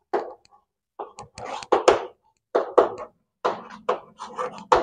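Chalk writing on a blackboard: an irregular run of quick taps and scratches as letters are written, in short bursts with brief pauses between words.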